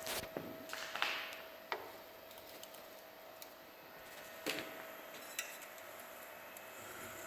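A few sharp clicks and light clanks of metal parts or tools being handled, several in the first two seconds and two more later, over a faint steady hum.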